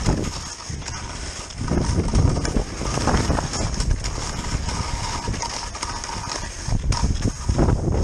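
Touring skis scraping and clattering over icy, wind-crusted snow during a fast downhill run, an uneven stream of rough knocks and scrapes, with wind rushing over the microphone.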